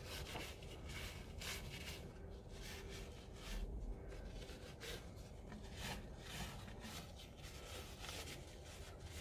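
Faint, irregular rubbing of a paper towel wiped along intake manifold gaskets on the cylinder heads, spreading WD-40 over them.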